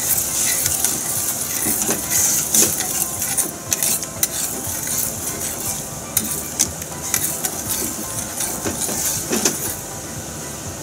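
A metal ladle stirring and scooping soy-sauce broth in an aluminium saucepan, clinking against the pan again and again over a steady hiss. The clinks stop near the end.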